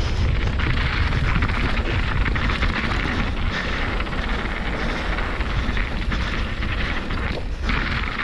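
Steady wind buffeting on the microphone over the rumble and rattle of a mountain bike rolling fast down a dirt trail.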